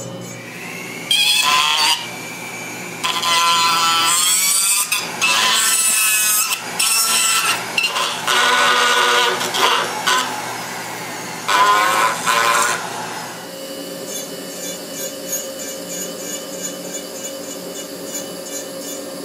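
Rotary power carving tools grinding into musk ox horn in several bursts of a second or two each, their whine climbing as they spin up and cutting in and out. About two-thirds of the way through they give way to a quieter steady hum.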